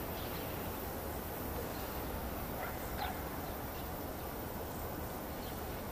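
Steady outdoor background noise with a couple of faint, short dog barks from far off, about two and a half to three seconds in.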